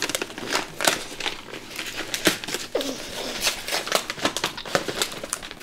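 Wrapping paper crinkling and rustling in quick, irregular crackles as a present is handled and unwrapped.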